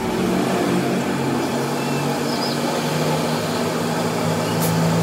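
Metal lathe running with a steady hum, spinning a steel shaft while the tool turns its end.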